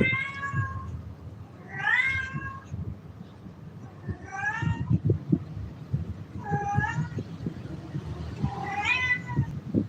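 Kitten meowing five times in a row, high-pitched calls that bend in pitch, each under a second long and a second or two apart. Soft low knocks and rustling come between the calls near the middle.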